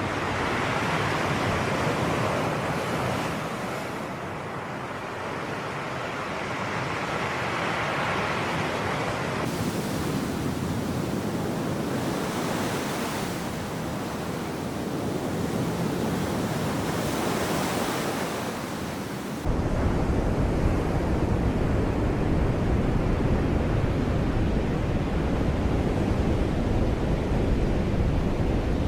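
Sea surf washing in and out, a steady rush that swells and eases over several seconds. About twenty seconds in it turns abruptly louder and deeper.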